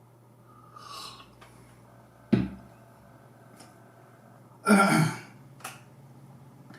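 A man's throat and breath sounds: a soft intake of breath, then a short sharp cough, and a louder, longer cough or throat-clearing about two and a half seconds later.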